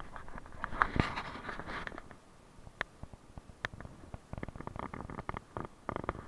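Footsteps in snow, an irregular string of short steps and clicks that thins out about two seconds in and picks up again in a cluster near the end.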